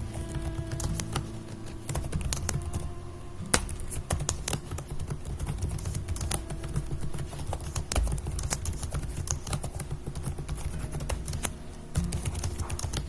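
Rapid, irregular typing on a keyboard, a steady run of key clicks, over soft instrumental music.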